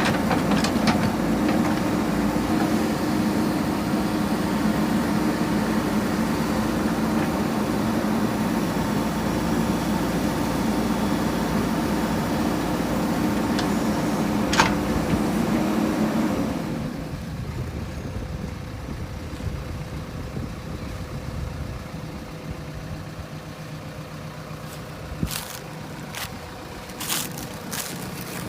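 Diesel engine of a JCB 3DX backhoe loader working steadily, then dropping to a quieter, lower running note about 16 seconds in. A sharp click comes shortly before the drop, and a few sharp knocks come near the end.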